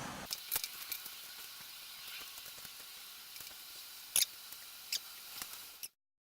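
A few light taps and clicks from a laptop being handled, over a faint steady hiss; the loudest tap comes about four seconds in, and the sound cuts off abruptly near the end.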